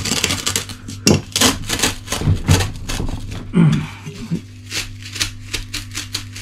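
Two sections of single-wall steel stove flue pipe being twisted and pushed together, the joint packed with fire cement. Gritty metal-on-metal scraping and rapid clicking for the first few seconds, thinning to separate sharp clicks near the end.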